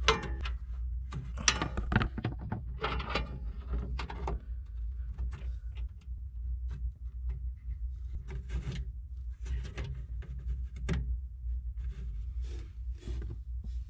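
Plastic SATA power connectors and cables being handled and plugged onto a solid-state drive in a computer case's drive tray: scattered clicks and knocks against the case, over a steady low hum.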